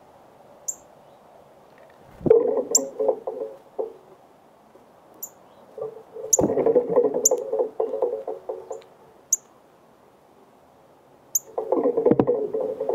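Short, sharp, high-pitched bird chip notes repeated irregularly, broken by three louder spells of close, low rattling and clattering noise.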